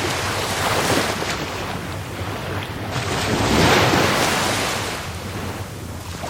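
Rough sea surf: waves breaking and washing in, swelling to their loudest about midway and then ebbing away.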